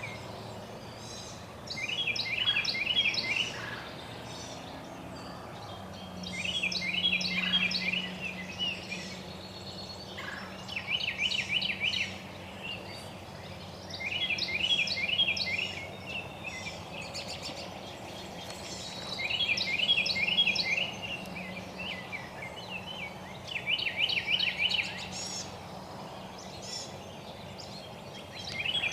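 A songbird singing a short phrase of rapid, high repeated notes, about a second and a half long, six times at intervals of four to five seconds. A faint steady low hum lies underneath through the middle.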